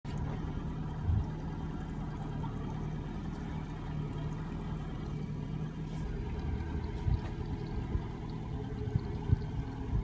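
Boat engine idling with a steady low hum, under the wash of sea water against the hull, with a few dull knocks.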